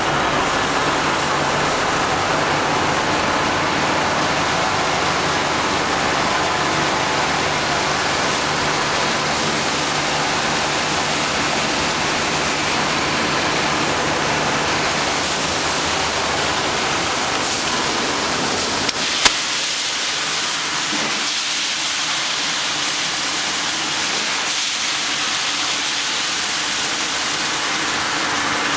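Ice-making plant machinery running: a steady hum under a loud, even hiss. About two-thirds of the way through a sharp click is heard, after which the hum falls away and mostly the rushing hiss is left.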